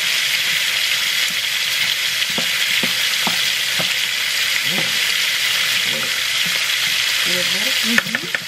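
Chicken thighs frying in a pan with a steady sizzle, while a spoon stirs and mashes potatoes in a pot, giving a few soft knocks. A sharp click comes near the end.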